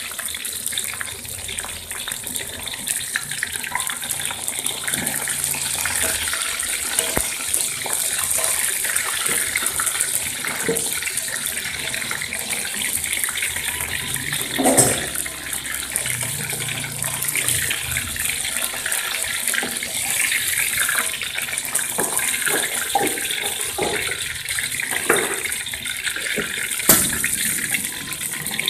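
Chicken pieces deep-frying in hot oil in a steel wok, a steady sizzling hiss. A metal spatula and a wire strainer clink against the wok now and then, loudest about halfway through and near the end.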